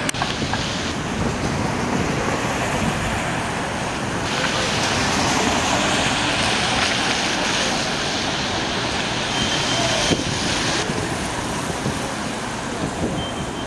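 City traffic on a rain-soaked street: a steady hiss of tyres on wet pavement with vehicles running. Its upper range shifts abruptly a few times.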